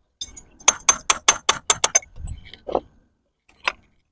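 Metal clinking of steel tools and fittings at a flanged butterfly-valve joint: a quick run of about seven sharp clinks, then a duller knock and one last clink.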